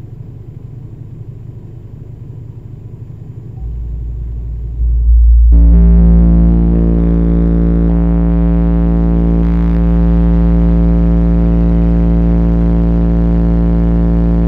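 Two 10-inch car subwoofers playing a steady 57 Hz test tone at competition level (about 152 dB), powered by a 1500 F Maxwell ultracapacitor bank alone. After a low rumble the tone comes in about three and a half seconds in, jumps much louder a second later, and then holds with a heavy buzz of overtones.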